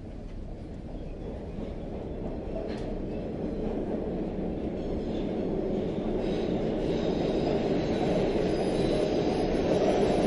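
Train riding along: a steady rumble of the running train that grows steadily louder, with a faint high-pitched wheel squeal coming in over the second half.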